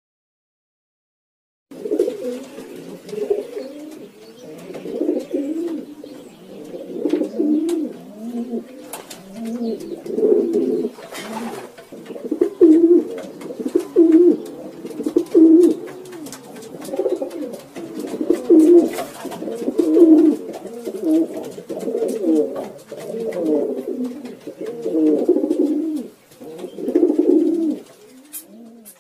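Domestic pigeons cooing, many low warbling coos overlapping in a continuous chorus that starts about two seconds in after a moment of silence. Occasional faint clicks run through it.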